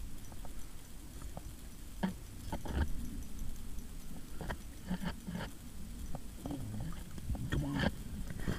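Scattered short clicks and knocks from hands working a fishing line at an ice-fishing hole, over a steady low rumble, with a few brief murmured voice sounds near the middle and end.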